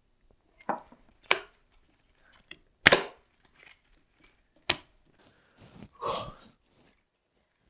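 Playing cards slapped down on a small wooden table in a fast card game: four sharp slaps spread over several seconds, the loudest about three seconds in, then a longer, softer sound near the end.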